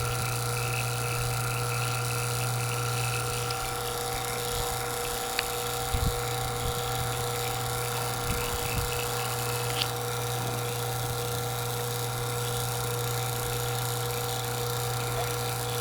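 JB vacuum pump running steadily, evacuating an air conditioning system down to deep vacuum, with a couple of light knocks about six and eight and a half seconds in.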